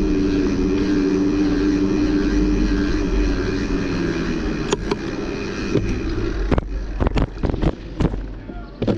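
Steady riding noise from a bicycle on the move: a low hum with rushing noise, then a run of sharp knocks and rattles over the last few seconds, as from the bike jolting over rough ground.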